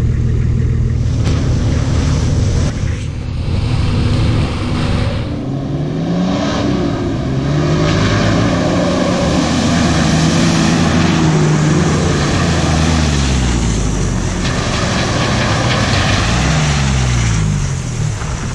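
A four-wheel-drive vehicle's engine running steadily for about five seconds, then revved up and down again and again as it works its way along the off-road track.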